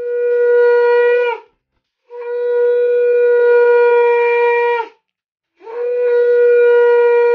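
Conch shell (shankha) blown in three long, steady blasts on one note, the second and third lasting nearly three seconds each, every blast dipping in pitch as it ends. This is the conch sounded in Hindu puja worship, here at the offering of food to Gopal.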